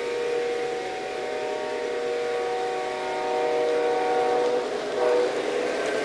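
The sound system of an MTH Union Pacific SD70ACe model diesel locomotive sounding its multi-chime horn. There is one long blast, then a short one about five seconds in. After the short blast the locomotive's running and rolling noise grows louder as it draws close.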